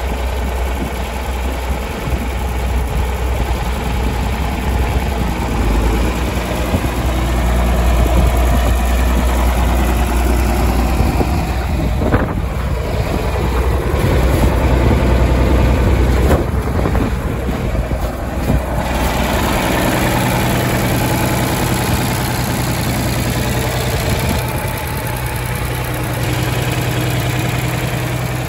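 John Deere 4520's six-cylinder turbocharged diesel engine idling steadily. It has a deep rumble at first and a steadier, clearer hum from about two-thirds of the way through.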